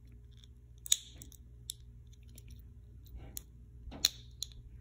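Small plastic clicks and handling noises as fingers turn and work at a small clear plastic light-up gadget, with sharper clicks about one second and four seconds in, over a steady low hum.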